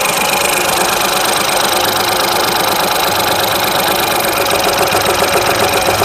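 Ford EcoSport's three-cylinder EcoBoost petrol engine idling rough and misfiring, shaking the whole car. The misfire comes from cylinder three, which has low compression.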